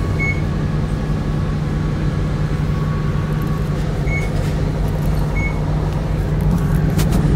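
Cabin sound of a diesel route bus under way: the engine and drivetrain run with a steady low drone. Three short high beeps are spread across the middle, and a couple of clicks come near the end.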